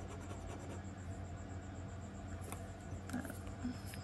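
Light clicks and taps of a metal jewelry chain being handled, a few sharp ones in the second half, over a steady electrical hum.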